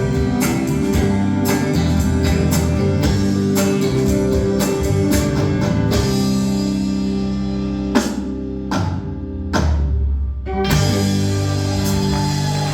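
Band with guitars and drum kit playing the closing bars of a song, with sustained chords. About eight seconds in come four separate hits played together, spaced under a second apart, and then the chord rings on again.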